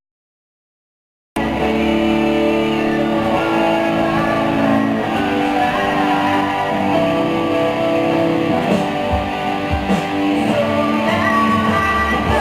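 Live band music led by electric guitar, with held chords. The sound drops out completely for about the first second and a half, then the band comes back in.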